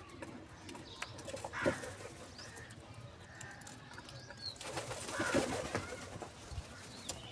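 Birds at a feeding spot: soft bird calls with a few sharp taps and brief flurries, the loudest about two seconds in and again about five seconds in.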